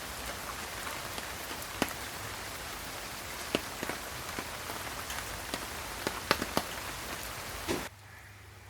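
Steady rain, with single heavier drops tapping sharply here and there. Near the end the rain cuts off abruptly, leaving a faint low hum.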